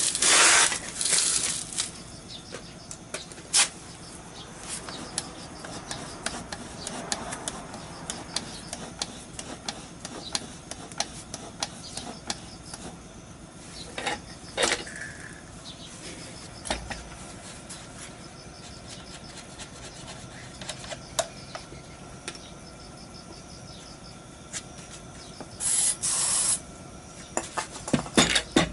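Hand-work on a stripped scooter engine unit: scattered clicks, knocks and rubbing of metal parts as its rear wheel and belt-drive pulleys are handled and turned, with two short rushing noises near the start and about 26 seconds in.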